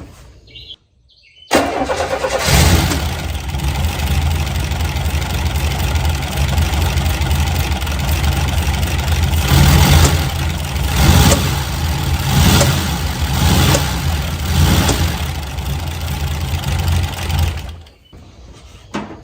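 Buick Grand National's turbocharged V6 starting about a second and a half in, running with several louder surges, then shut off near the end. It is still backfiring, even with a swapped-in wastegate.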